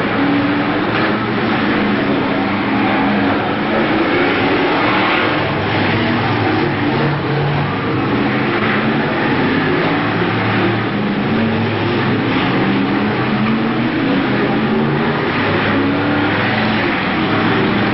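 Pack of BriSCA F1 stock cars racing, several engines running loud and unbroken, their pitches wavering up and down as the cars accelerate and lift around the track.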